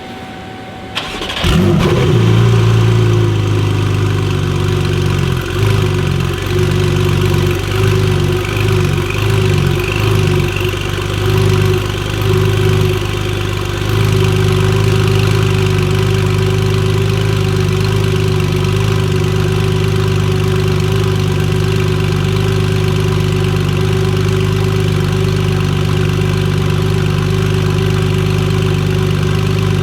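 Porsche 992 Carrera S's 3.0-litre twin-turbo flat-six starting up about a second in, then idling. The idle wavers for the first dozen seconds, then holds steady.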